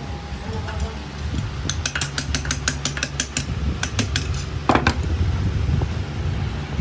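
A quick run of sharp taps or knocks, about six a second, starting about two seconds in, with a few more shortly after, over a steady low machine hum.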